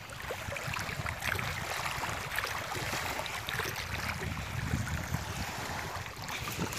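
Wind buffeting the microphone over small waves lapping on a stony lakeshore, a steady rumbling hiss.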